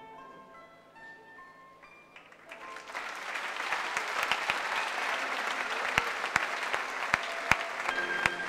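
Quiet music of single held notes, then about two and a half seconds in an audience breaks into applause, dense clapping with a few sharp louder claps, over the music.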